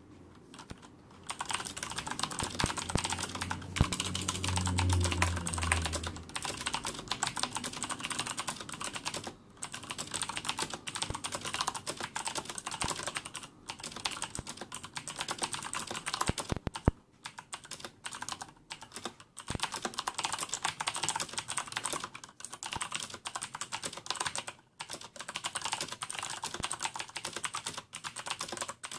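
Fast typing on a Corsair K70 mechanical keyboard with clicky Cherry MX Blue switches and no O-rings, so the keycaps bottom out undampened; a dense run of clicks with short pauses every few seconds. A low hum sounds under the typing for a couple of seconds early on.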